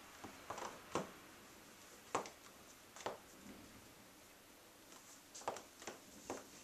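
Black stiletto high heels clicking on a ceramic tile floor as the wearer shifts their feet: a handful of sharp, irregular taps, several of them close together near the end.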